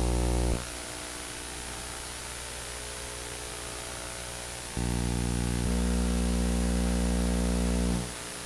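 A steady low electrical hum made up of several fixed tones. It cuts out about half a second in, comes back a little before five seconds, and drops out again near the end, over a faint steady hiss.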